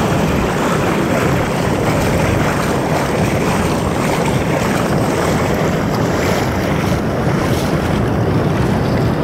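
Ocean surf washing over the sand in shallow foam, with wind rumbling steadily on the microphone.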